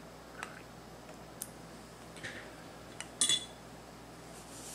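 Small fly-tying scissors being handled after snipping tinsel: a few faint clicks, then a brief metallic clink about three seconds in.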